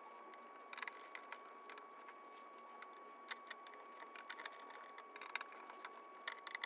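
Faint scattered clicks and light taps of small plastic and metal PC parts being handled, such as peeling a protective film off an M.2 drive and seating the motherboard's M.2 heatsink, over a faint steady high tone.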